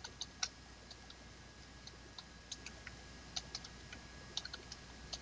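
Computer keyboard keys clicking faintly at an uneven pace as a password is typed, keystroke by keystroke.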